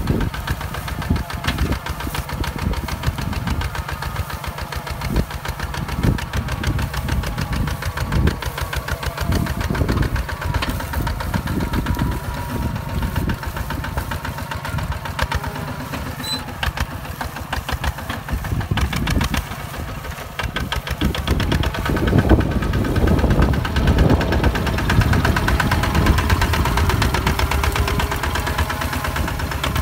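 Hinota HG Gold 155 DI walking tractor's direct-injection diesel engine running under load while it pulls a plow through dry soil. A steady, rapid chugging that grows louder about two-thirds of the way through.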